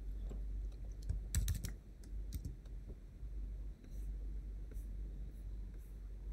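Keystrokes on a computer keyboard: a few scattered clicks, with a quick run of keys about a second and a half in, then only faint occasional clicks.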